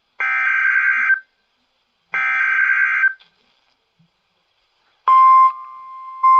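Emergency Alert System SAME header data bursts, buzzy screeching tones about a second long, heard twice a second apart, marking the start of a new weather alert. About five seconds in, the NOAA Weather Radio steady warning alarm tone starts, dips briefly and resumes.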